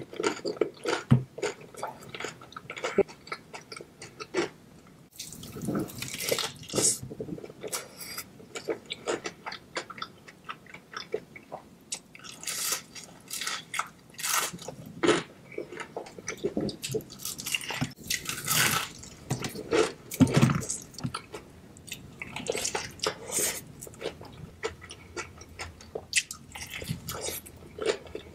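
Eating sounds from biting into and chewing fried seafood in sauce: crisp bites and wet, saucy chewing in irregular bursts.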